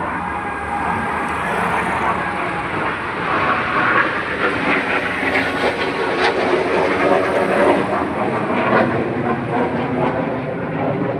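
A train running, a continuous rumbling noise with irregular knocks, a little louder after the first few seconds.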